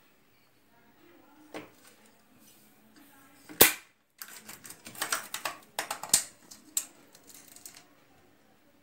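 Metal springform cake tin being opened by hand: one sharp click about three and a half seconds in as the side clasp snaps, then a quick run of metallic clicks and rattles as the ring is worked loose from the cake.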